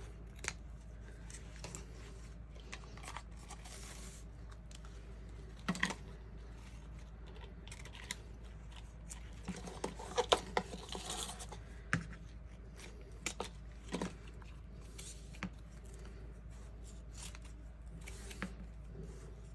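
Scissors snipping through fabric craft ribbon, with the ribbon strips rustling and sliding as they are handled on a cutting mat. Scattered short snips and clicks, busiest around the middle.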